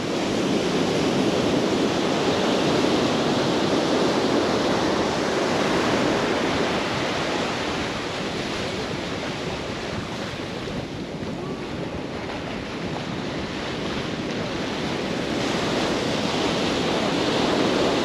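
Sea surf breaking and washing up the beach in a steady rush, swelling in the first few seconds, easing off through the middle and building again near the end.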